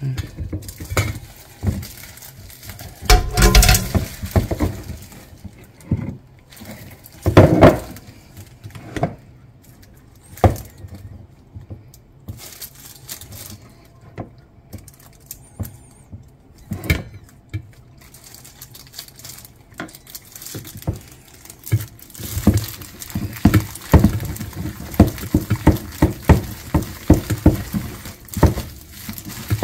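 Plastic-gloved hands tossing cooked thin wheat noodles with red chili sauce in a stainless steel bowl. A few separate knocks and clinks come in the first half, and from about two-thirds in there is a fast, busy run of soft wet slaps and patter.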